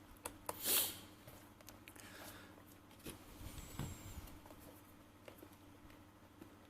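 Faint handling noises on a work surface: a short scraping rustle about a second in, then scattered light clicks and taps over a low steady hum.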